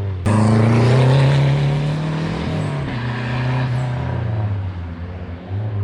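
Rally car engine at high revs driving past on a stage, its pitch climbing then dropping about halfway through before holding steadier.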